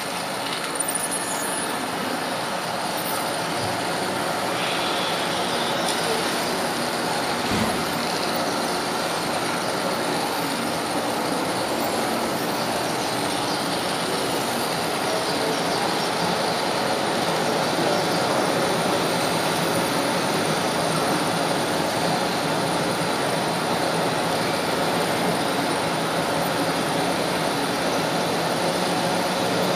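Model train running along the track, heard from a camera riding on it: a steady rolling and motor rush that grows slowly louder, with a single knock about a quarter of the way in.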